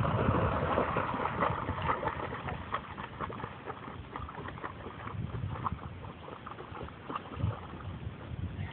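Water splashing as a dog paddles away from the shore, loudest in the first couple of seconds, then small waves lapping and slapping at the bank.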